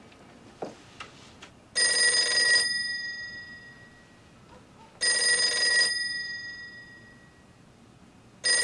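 A telephone ringing: three rings about three seconds apart, each ring short with a trailing fade. A few faint clicks come before the first ring.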